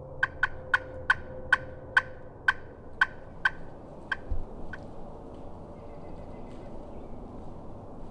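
A pot-style friction turkey call, struck with a striker, sounding a series of about eleven short, sharp, turkey-hen-like notes. The notes come quickly at first, then further apart and fainter, over about four and a half seconds. A low thump comes about four seconds in.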